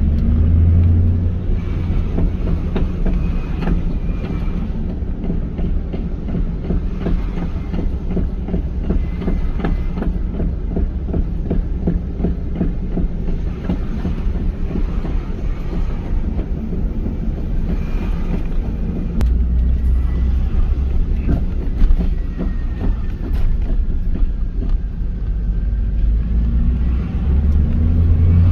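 Rear end of a 1998 Pontiac Firebird Formula with its 5.7 L LS1 V8 banging over and over in a quick rhythm, over a steady low rumble. The banging comes from a damaged torque arm, its bushings and rear tire assembly, not from the differential as first thought.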